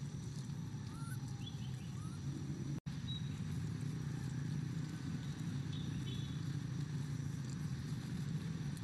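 Steady low rumble of outdoor background noise, with a faint steady high tone and a few faint, short rising chirps in the first two seconds. The sound cuts out for an instant just under three seconds in.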